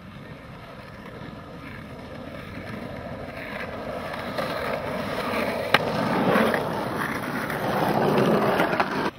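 Skateboard wheels rolling over the paved rollers of a pump track, a rough rumble that grows steadily louder as the boards come closer. One sharp click sounds just past the middle.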